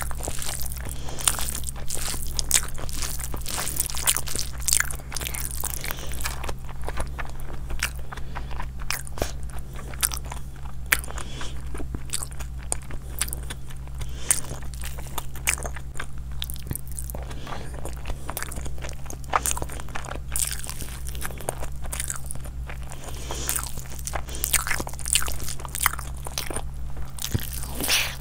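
Close-miked eating: a person chewing and biting, with many irregular crisp crunches and mouth clicks, over a steady low hum.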